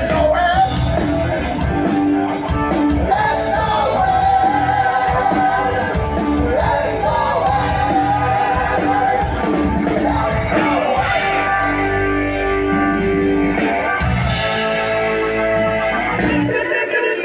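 Live rock band playing loudly: a man singing over electric guitar, bass and drums.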